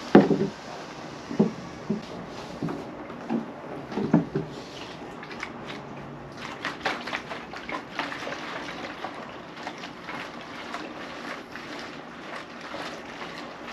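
Gasoline and water sloshing in a capped fuel can as it is shaken, to mix in the water that pulls the ethanol out of the gasoline. A handful of heavy sloshes and knocks come in the first four or five seconds, then lighter knocks and clicks as the can is handled.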